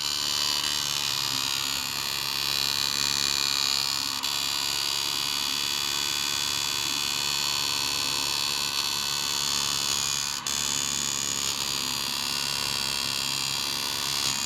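A fan running with a steady, rough, buzzing drone: the abnormal 'snoring' noise of a noisy, faulty fan. The level dips briefly about ten seconds in.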